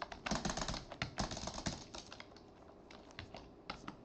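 Keys being typed on a computer keyboard: a quick run of keystrokes in the first couple of seconds, then a few scattered single keypresses.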